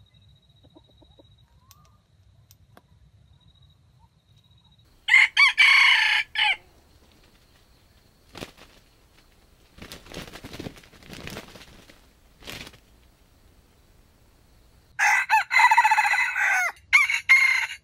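Red junglefowl rooster crowing twice, about ten seconds apart, each crow loud and short. A few faint, softer noises come between the crows.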